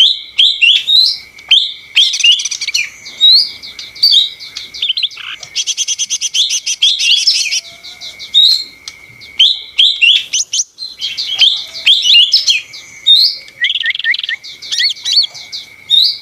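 Lesser green leafbird (cucak ijo mini) singing a fast, chattering song of rapid high chirps and whistled glides, with a quick buzzy trill about six seconds in. A steady thin high tone runs beneath the song.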